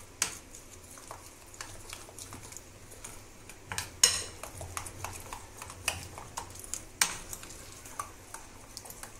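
A utensil stirring wheat-flour slurry in a bowl, clicking and tapping against the bowl at an irregular pace, with louder knocks about a quarter second in, about four seconds in and about seven seconds in. The flour and milk are being stirred well so that no lumps form.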